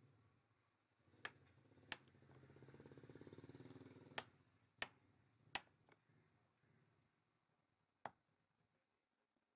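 Six sharp knocks of a chisel being struck as it cuts a rectangular mortise into a turned wooden bed leg, at uneven intervals. A faint hum swells and fades in the first half.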